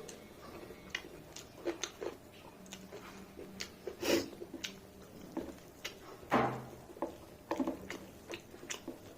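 A person chewing and eating close to the microphone: irregular wet mouth clicks and smacks, with louder ones about 4 seconds and 6 and a half seconds in.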